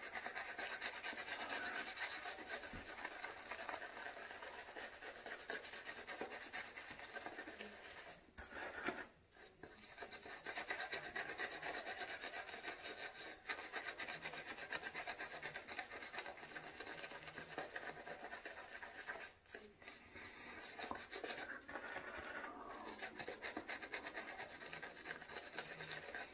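Shaving brush being worked over the face, spreading lather onto stubble: a faint, steady scratchy rubbing that breaks off briefly twice.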